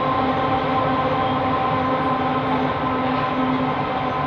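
Diesel-hauled coal train crossing a bridge: a steady engine drone with several held tones over the continuous rumble of coal hopper wagons rolling on the rails.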